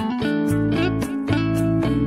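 Background music: a guitar-led instrumental with a bass line and a steady beat.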